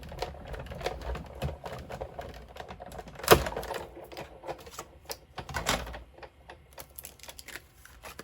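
A metal cutting die, plates and paper handled and run through a die-cutting machine: a run of light clicks and taps with one sharp knock about three seconds in, the clicks growing sparser near the end.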